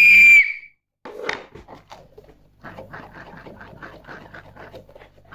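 A short, loud, high-pitched squeal at the start. Then a run of soft irregular crinkling as the packaging of a squishy toy is handled and opened.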